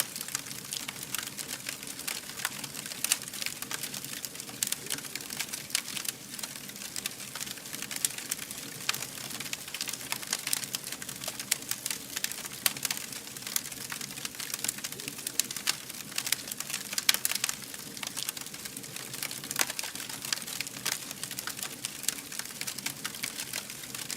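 Wood fire burning with dense, irregular crackling and popping over a steady hiss.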